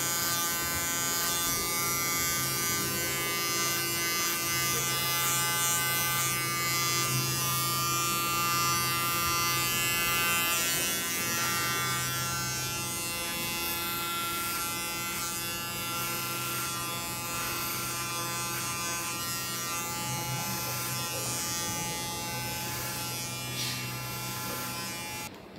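Electric hair clippers buzzing steadily as they cut short hair at the sides and back of a man's head.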